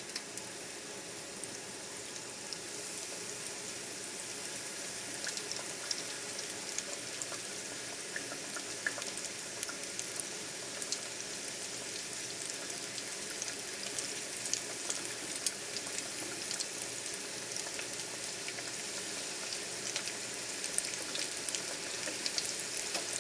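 Flour-and-egg-coated chicken wings frying in hot oil in a pan: a steady sizzle with scattered pops and crackles.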